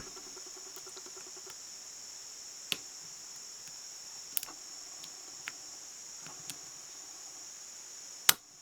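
Lock pick working the security pins of a Brinks padlock: a few faint, scattered clicks, then one sharp, louder click near the end, over a steady high-pitched whine. The picking has gone past the false set into an overpick.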